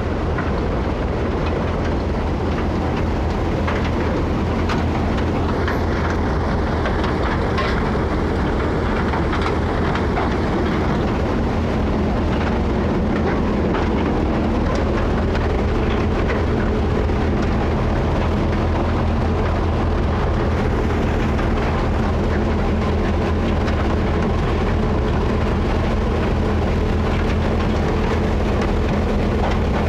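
Tractor-driven thresher running steadily while threshing soybeans: a constant low engine drone under a continuous rattling clatter from the machine.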